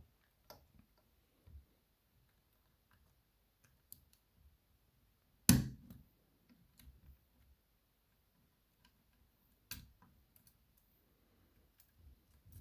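Small metal clicks and taps as the C-clip is worked off the back of an ISEO R6 Plus dimple lock cylinder. There is one sharp, loud click about five and a half seconds in and another near ten seconds.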